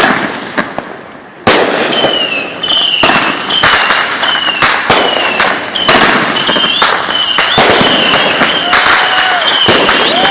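Consumer fireworks going off in a dense barrage: rapid sharp bangs and crackling with many short, high whistles that dip and rise in pitch. After a couple of bangs, the barrage starts about a second and a half in and runs on without letting up.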